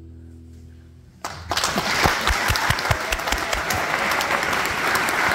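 The last acoustic guitar chord rings out and fades, then about a second in the audience starts applauding, and the clapping carries on.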